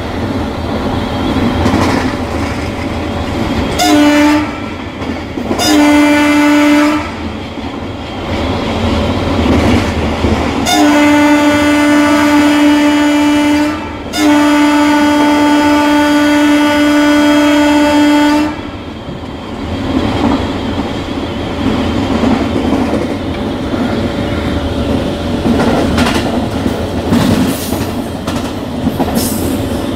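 Indian Railways locomotive horn heard from inside the cab: a short blast about four seconds in, a second blast of about a second soon after, then two long blasts from about eleven to eighteen seconds. Under the horn runs the steady rumble and wheel clatter of the locomotive running along the track.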